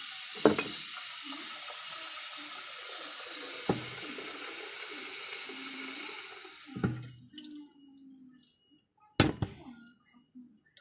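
Kitchen tap running into a stainless steel sink while a cup is rinsed, with a couple of knocks. The water is shut off about six seconds in, followed by a few clunks of things being handled and set down.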